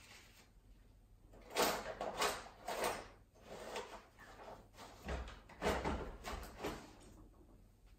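Objects being handled and slid about: a run of short scraping, rustling strokes, with a low thump about five seconds in.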